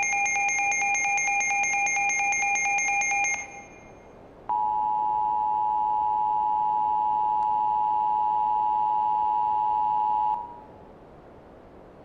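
Rapid pulsed electronic alert beeping that stops about three and a half seconds in. About a second later comes a steady two-tone emergency alert attention signal, the shrill dual tone that precedes a broadcast warning. It holds for about six seconds and cuts off abruptly.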